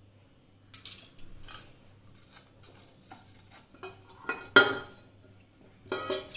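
Stainless steel pan knocking and shifting on a granite countertop as it is rubbed with oil by hand, with short metallic clatters and rings; the loudest clang comes about four and a half seconds in.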